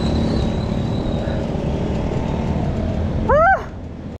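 Steady rumble of road and traffic noise heard from a moving bicycle. Near the end comes one short, loud tone that rises and then falls.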